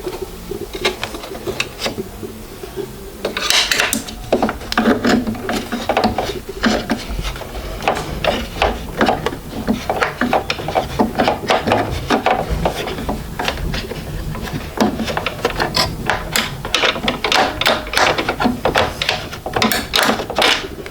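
Hands handling a 3D printer and its packaging: a busy run of small clicks, knocks and rubbing, quieter for the first few seconds.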